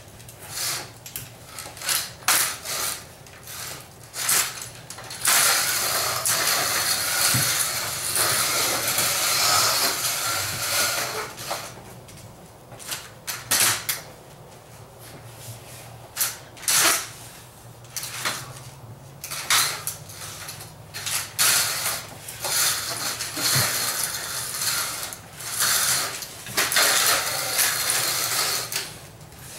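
Inline roller hockey skate wheels rolling and scraping on a concrete floor, with a folding metal walker's legs and wheels knocking and clattering as it is pushed along. Long stretches of steady rolling noise alternate with sharp clacks.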